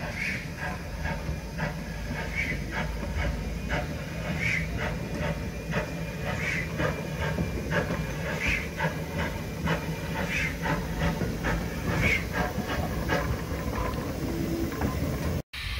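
Small narrow-gauge saddle-tank steam locomotive working slowly with a short train of wagons: steady chuffing and hissing of steam, with a sharper accent about every two seconds.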